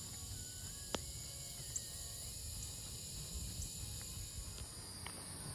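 Steady high chirring of crickets and other insects, over a low rumble, with one sharp click about a second in.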